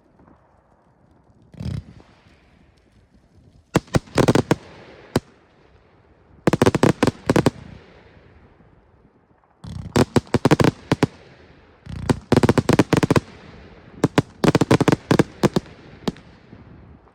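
Display fireworks going off: a single thump, then five volleys of rapid sharp bangs, each about a second long, with short quieter gaps between them.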